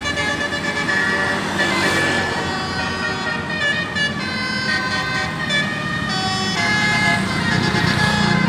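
Bus telolet horn, a Basuri-type multi-tone air horn with roof-mounted trumpets, playing a melody of held notes that change pitch in steps.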